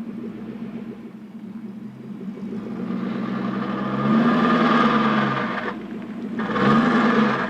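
1984 Porsche 928S V8 engine pulling the automatic transmission in reverse from cold, its pitch rising and falling twice, with the strange noise the owner likens to a roller coaster going up a chain lift. The uploader later found this noise was the sign of a failing automatic transmission, which died months afterwards.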